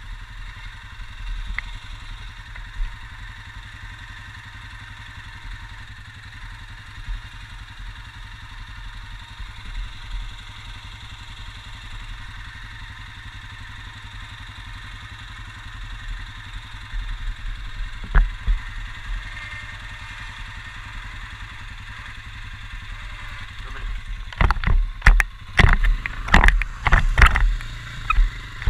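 Quad bike (ATV) running while ridden, a steady engine and rushing noise. From about 24 seconds in, a rapid series of loud knocks and clatters breaks in.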